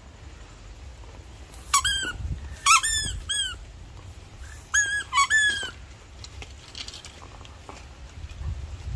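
Dog chewing a rubber squeaky toy, squeezing out two bursts of short squeaks, each squeak rising then falling in pitch: a first run of about four squeaks around two seconds in, a second of about three near the middle.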